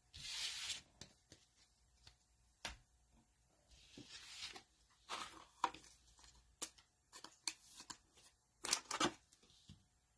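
Football trading cards being handled: a scatter of soft swishes and light clicks as cards slide against each other, with a quick cluster of them near the end.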